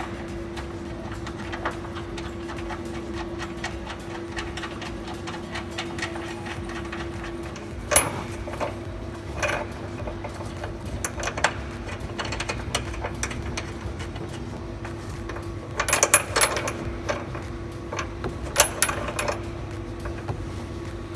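A steady machine hum with scattered short metallic clicks and knocks, one about eight seconds in and a cluster near the end.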